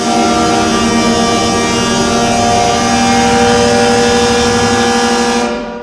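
Hershey Bears ice hockey goal horn sounding one long, steady, loud blast of several tones at once, the signal that a goal has been scored. It fades out near the end.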